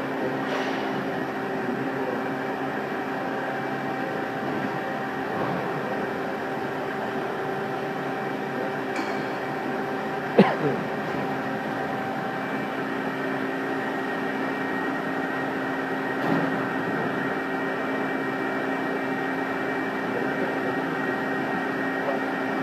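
Hydraulic CNC brake press running with a steady, even hum. A single sharp knock comes about ten seconds in, and a softer one a few seconds later.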